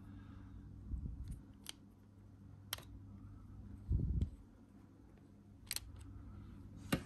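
Sparse small clicks of a precision screwdriver and fingers working the screws and plastic parts of a Kyosho Mini-Z Buggy chassis, with a dull bump of handling about four seconds in and a quick run of clicks near the end.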